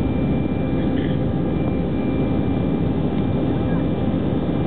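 Steady jet engine and airflow noise heard inside the cabin of an Airbus A319 climbing after takeoff: an even low rumble with a faint, steady high whine.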